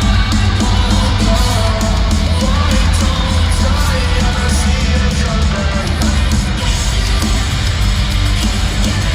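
Live rock band playing loudly through an arena sound system, heavy bass and distorted guitars, with crowd yelling and singing along over it.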